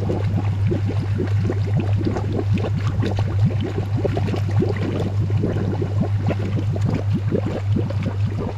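Water bubbling and gurgling steadily as oxygen is pumped into it to revive a freshly landed catfish, over a steady low hum.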